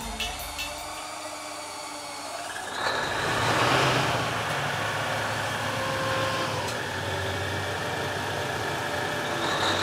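MTU marine diesel engine starting: after a quieter stretch it fires up about three seconds in with a surge, then settles into a steady run.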